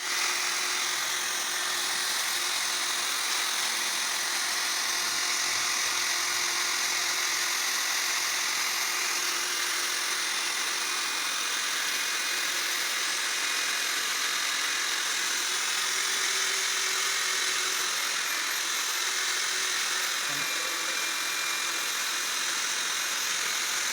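Diamond core drilling machine running steadily as it cuts into a concrete slab, a constant high-pitched grinding whine.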